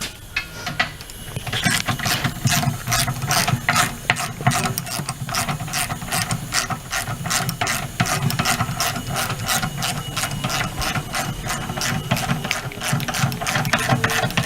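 Hand socket ratchet clicking steadily as it turns the bolt on a tire's run-flat insert, several clicks a second, starting about a second and a half in.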